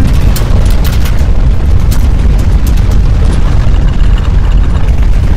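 Deep, continuous earthquake rumble of strong ground shaking, with scattered rattling cracks and clatter over it, most frequent in the first couple of seconds.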